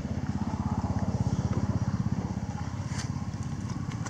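A small engine running steadily with a fast, even throb, and a single sharp click about three seconds in.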